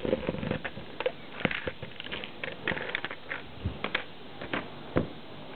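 Handling noise as a handheld camera is moved: scattered light clicks and taps at irregular intervals, with a duller knock near the end.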